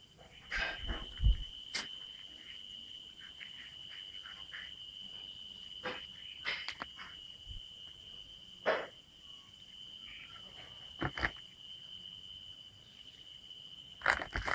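Crickets singing: one steady, high, unbroken trill, with faint rapid ticking above it. A few short knocks and thumps break in, the loudest about a second in.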